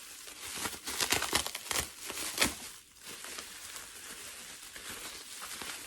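Plastic packaging crinkling and rustling as it is handled and unwrapped. Sharp crackles come in the first half, then a softer, steadier rustle.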